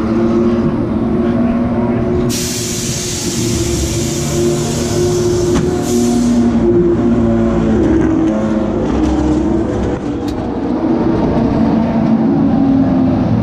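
Racing-car engine running in the pit lane, its pitch shifting up and down. A loud rushing hiss starts abruptly about two seconds in and stops about four seconds later.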